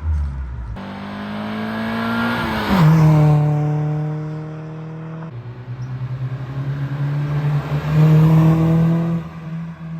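Acura Integra four-cylinder running through a Yonaka 2.5-inch cat-back exhaust, revving and pulling under way with its pitch rising and falling. It is loudest about three seconds in and again around eight to nine seconds. The audio is several short clips cut together, recorded on a phone microphone.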